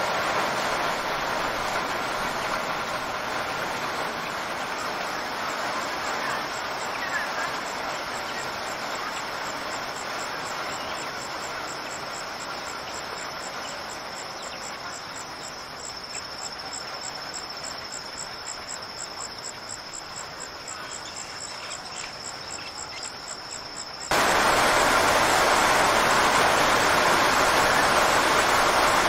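Rain sound effect: an even hiss of rain that slowly fades, with a faint high, pulsing trill over it, then cuts abruptly to a louder rain hiss about 24 seconds in.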